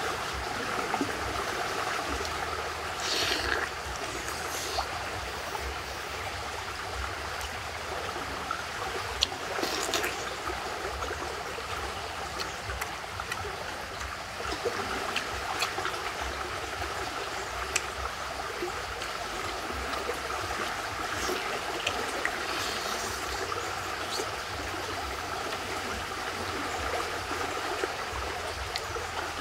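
A small forest stream running steadily, a continuous trickling rush of water, with a few brief sharp sounds now and then.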